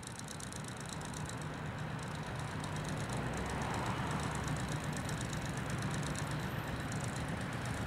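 Steady low mechanical rumble with an even hiss, like an idling engine or machinery ambience. It grows louder over the first few seconds, then holds steady, with a faint rapid ticking in the high end.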